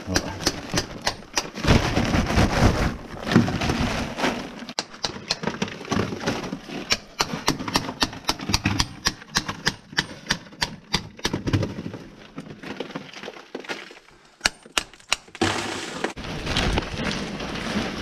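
A hand hammer chipping ore out of a rock face: rapid, irregular sharp strikes, several a second, thinning out a little past the middle. A louder rough, scraping noise comes in early on and again over the last few seconds.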